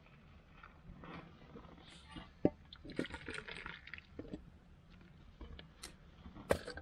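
A metal cooking pot is handled at an open wood fire and its potato stew is tipped into a metal bowl: scattered light clinks and knocks of metal with soft sloshing. There is a sharp clink about two and a half seconds in and another near the end.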